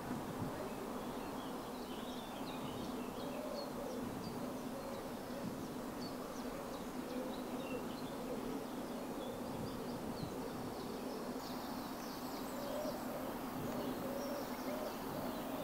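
Outdoor ambience: a steady low buzz, with faint, scattered high bird chirps over it.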